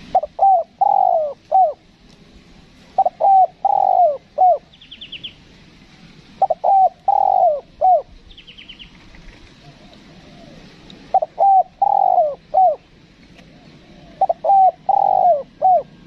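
Spotted dove cooing: five phrases a few seconds apart, each a couple of short coos, a longer falling coo, then a short final coo. A small bird gives faint quick runs of high chirps twice in between.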